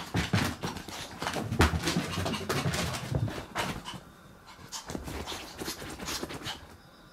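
A Chihuahua panting, with quick scratchy taps from its feet as it dashes about and paws at the floor; the sound drops away about halfway through.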